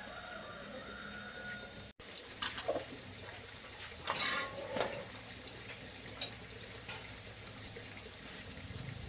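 Metal tools and small parts of an old Honda Cub motorcycle clinking and knocking as it is taken apart by hand: a scattering of sharp clinks, the loudest cluster about four seconds in.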